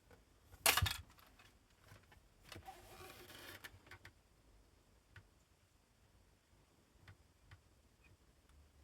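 Handling noises: a sharp knock about a second in, then a second or so of scraping or rustling and a few faint clicks.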